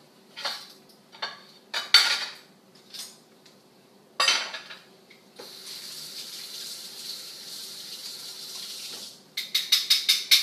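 Dishes and cutlery clinking in a few separate knocks, then a kitchen tap running steadily for about four seconds, then a quick run of sharp clinks near the end.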